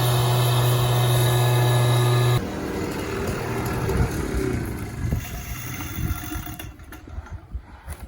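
Motor engine running steadily with a strong low hum, cutting off abruptly a little over two seconds in; a quieter, rougher engine-like noise then fades away.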